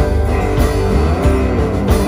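Live band playing an instrumental passage, with acoustic and electric guitars over bass and drums.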